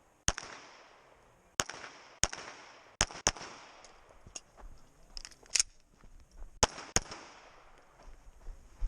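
Competition shots from a pistol-calibre firearm during a practical shooting stage: about seven shots, some in quick pairs, each trailing off with echo, with quieter clicks and knocks in a pause about halfway through.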